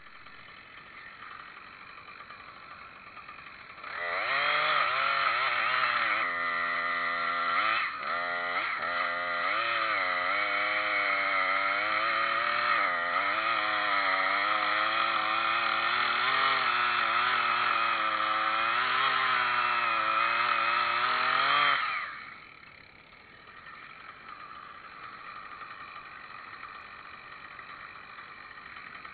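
Chainsaw run at high revs for about eighteen seconds starting about four seconds in, its pitch wavering as it works under load, then dropping back to a quieter engine idle.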